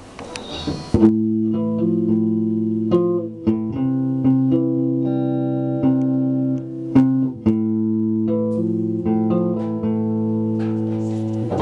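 Electric guitar played slowly, starting about a second in: sustained chords and single notes that ring on and change every second or so.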